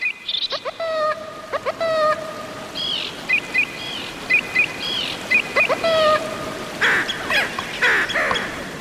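Underwater hydrophone recording of marine animals calling: many short whistles and chirps, some sweeping up or down in pitch, overlapping irregularly over a steady background hiss.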